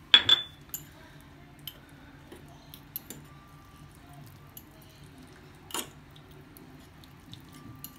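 Metal fork clinking and scraping against a small ceramic ramekin while stirring chopped herbs together. A sharp ringing double clink comes at the very start, then light scattered ticks, and another clink at about six seconds.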